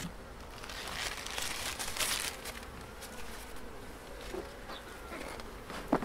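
A colony of honeybees buzzing steadily from an open hive. A short hiss sounds about one to two seconds in.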